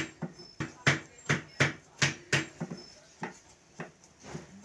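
Cleaver chopping garlic on a wooden chopping block: sharp knocks about three a second, turning lighter and more uneven after about two and a half seconds.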